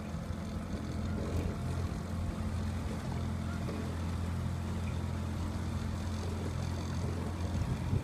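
Small motorboat's engine running steadily with a low, even hum, over water noise; the note changes just before the end.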